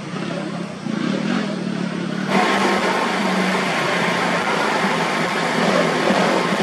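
Enduro dirt bike engine running and revving under load on a muddy off-road trail. About two seconds in the sound jumps suddenly louder and closer.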